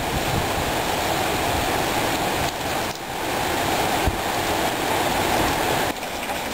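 Hurricane wind gusting through trees and buffeting the microphone: a heavy, steady rushing noise, strongest in the low range, that eases briefly about three seconds in and again near the end.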